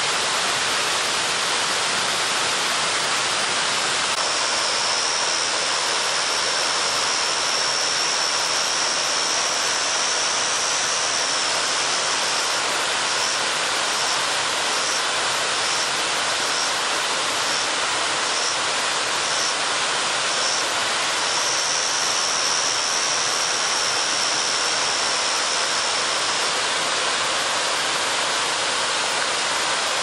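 A 3 m waterfall pouring steadily, a constant rush of falling water. A thin high-pitched tone sounds over it from about four seconds in, pulsing about twice a second for a stretch in the middle, and stops a few seconds before the end.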